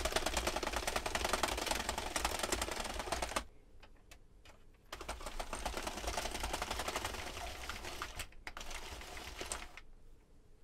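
Sentro 22-needle circular knitting machine with a replacement gear and handle assembly being hand-cranked under yarn tension, a rapid rattling run of needle clicks as the carriage goes round. It cranks for about three seconds, pauses for over a second, then cranks again for about five seconds and stops near the end.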